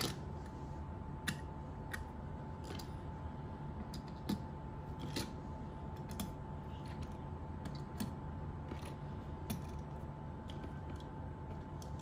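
Light, irregular clicks and taps as Hot Wheels die-cast toy cars are set down one at a time on a cutting mat, about one a second, over a steady low hum.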